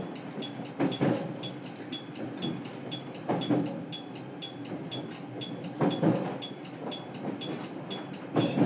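JR Kyushu 817 series electric multiple unit running, heard from inside the car: a steady rumble, with the wheels knocking in quick pairs over rail joints about every two and a half seconds, and a regular run of faint high ticks.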